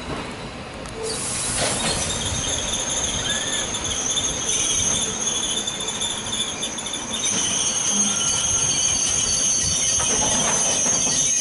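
Passenger train rolling slowly over curved station track, its wheels squealing in a steady high-pitched screech that starts about a second in, over the rumble of the coaches.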